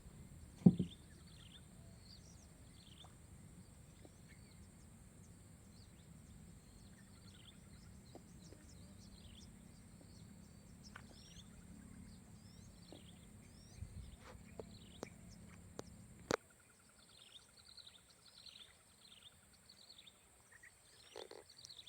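Faint outdoor ambience of birds chirping, many short falling chirps, over a steady high hiss and a low background rumble. A single sharp knock comes about a second in, and the low rumble cuts out suddenly about sixteen seconds in.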